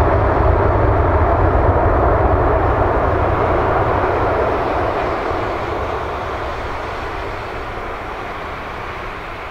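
Jet noise from a Boeing 747-400's four engines: a loud, steady rumble with a strong low end that slowly fades over the second half.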